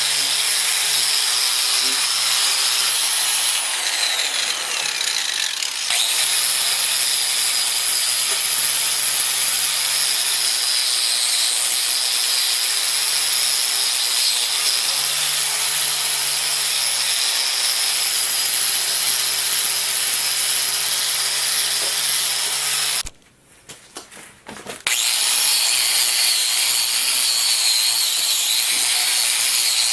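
A power tool running steadily in a metal shop, a constant high-pitched cutting noise. It drops away for about two seconds near the end, then comes back.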